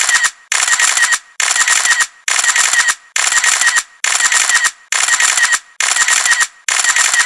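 Camera shutter sound effect: bursts of rapid-fire shutter clicks, like a camera shooting continuously, repeating about once a second.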